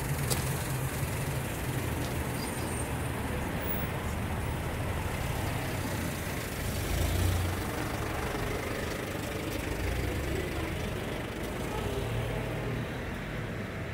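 Street traffic noise: a steady low rumble of car engines and tyres, with a car driving close by that swells briefly about seven seconds in.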